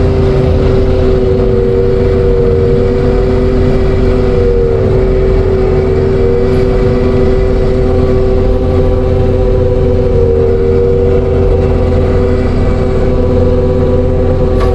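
Compact track loader running a hydraulic forestry mulcher at work: a steady diesel drone with a high whine, one pitch of which sags and recovers a few times as the mulcher takes load.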